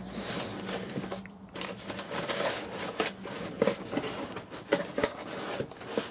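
Cardboard box flaps being pushed back and crumpled newspaper packing rustling and crinkling under hands, in irregular spurts with a few sharp taps.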